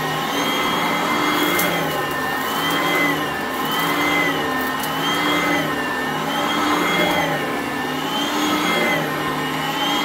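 Vacuum cleaner running steadily on carpet, its motor whine dipping and rising in pitch about every second and a half as it is pushed back and forth.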